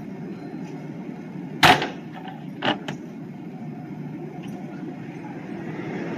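Railway platform sounds: a steady low rumble, broken by one sharp loud bang about a second and a half in and a smaller double knock about a second later.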